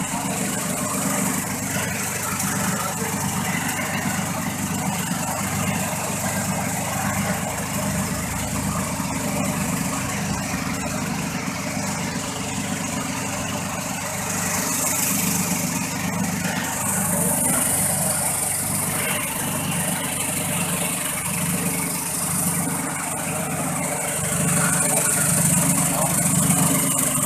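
Pepper sorting machine running steadily, its vibrating sieve screens shaking peppercorns across the metal mesh. The noise grows a little louder near the end.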